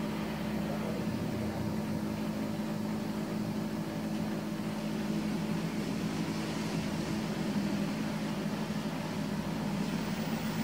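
A steady low mechanical hum, like a motor running, holding one even pitch throughout.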